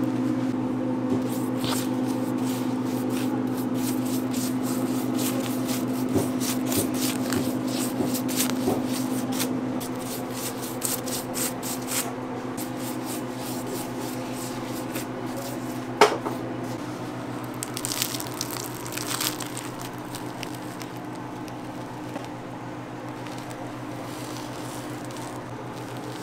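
A machine running with a steady hum, with many short crackling clicks and squishy noises over it and one sharp knock about two-thirds of the way in.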